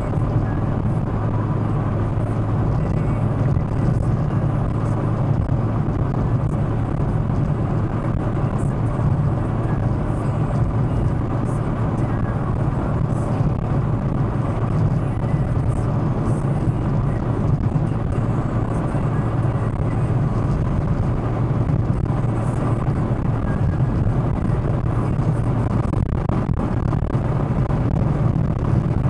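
Astra's road noise heard from inside the cabin while cruising on a highway at about 120–130 km/h: a steady low hum of engine and tyres under an even rush of wind and road noise.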